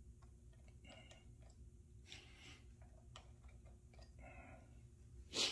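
Faint clicks and plastic rustling of fingers handling a motorcycle's under-seat USB charger socket while a USB tester is fitted into it, with one short, louder noise near the end.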